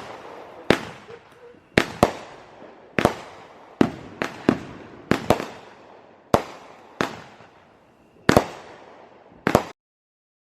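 Fireworks going off one after another: about eighteen sharp bangs at uneven intervals, some in quick pairs, each trailing off in an echo. The sound cuts off suddenly shortly before the end.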